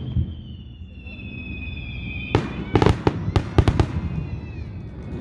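Aerial fireworks: a whistle slides slowly down in pitch for about two seconds, then a loud shell burst comes about two and a half seconds in, followed by a quick run of sharp cracks over the next second or so.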